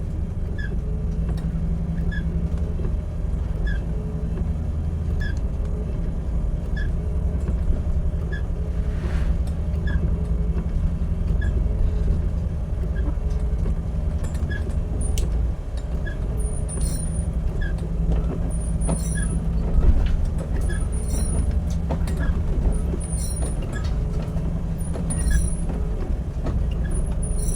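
A ship's engine running steadily, a low drone throughout. A faint short chirp repeats about every second and a half, and irregular high ticks come in during the second half.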